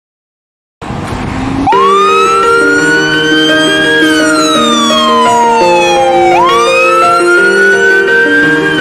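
Fire engine siren in a wail, pitch sweeping up and then slowly down, about four and a half seconds to each rise and fall. It starts about two seconds in, after a moment of silence, over background music.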